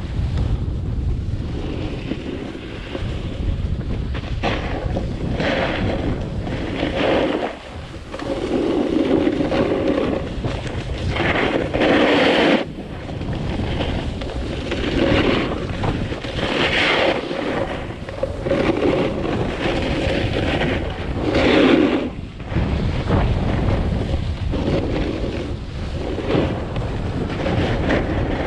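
Snowboard scraping and carving across packed snow in a series of turns, with a surge of rasping every one to three seconds. Underneath is a steady rumble of wind on the GoPro's microphone.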